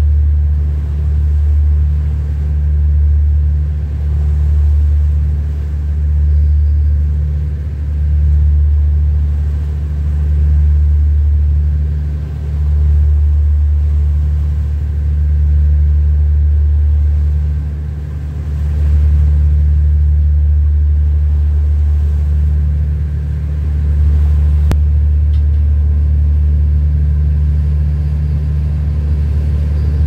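Boat engine running with a steady low drone, its level rising and falling about every two seconds at first and holding steadier later.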